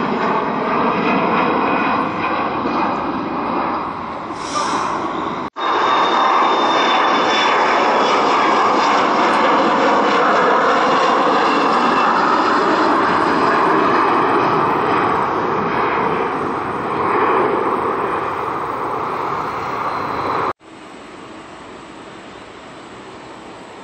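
Regional jets' turbofan engines at climb power passing overhead, loud and steady, with a thin high fan whine. A hard cut breaks it about five seconds in. Near the end another cut drops it to a much quieter, steady jet sound from a regional jet on approach to land.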